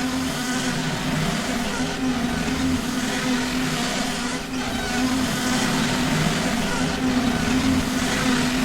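Rubber balloon being rubbed, giving a continuous squeaking drone on a steady low pitch that wavers slightly without a break.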